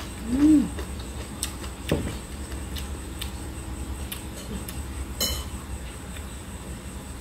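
A short hummed "mm" near the start, then quiet eating-by-hand sounds: scattered small clicks and a light clink on the plate about five seconds in.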